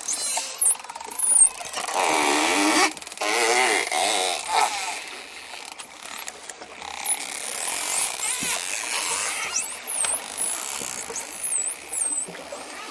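Dolphins calling: high whistles that sweep up and down throughout, and lower wavering, buzzy calls for a few seconds near the start.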